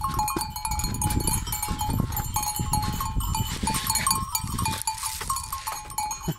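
Metal goat bells on the goats' collars clanking irregularly as the goats move, over wind rumbling on the microphone.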